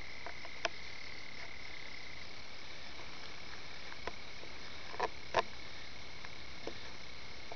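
Melanophryniscus red-bellied toads giving a continuous high trill, loudest for the first two seconds and fainter after, over the hiss of a shallow trickle of running water. A few short clicks or splashes, the strongest a pair about five seconds in.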